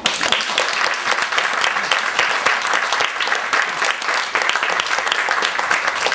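Audience applauding, breaking out all at once and going on steadily.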